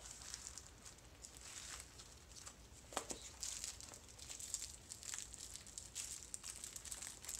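Tissue paper rustling and crinkling in irregular bursts as a wrapped gift is unwrapped by hand, with a sharper tick about three seconds in.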